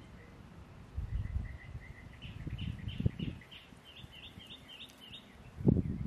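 A songbird singing a quick run of repeated chirping notes, over low gusts of wind buffeting the microphone, the strongest gust near the end.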